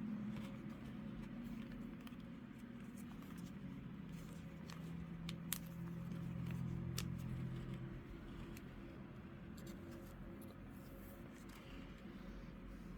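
Faint handling of a plastic card sleeve and a trading card: scattered light clicks and soft rustles over a low steady hum.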